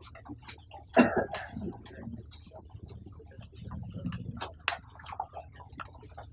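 Whiteboard duster wiping marker writing off a whiteboard, giving scattered short rubbing strokes and clicks, with one loud cough about a second in.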